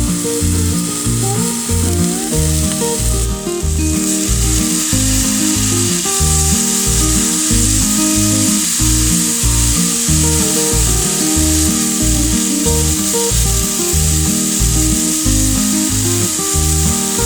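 Green peppers and carrots sizzling as they stir-fry in a pan. The sizzle dips for a moment about three seconds in, then comes back stronger. Background music with a steady beat plays throughout.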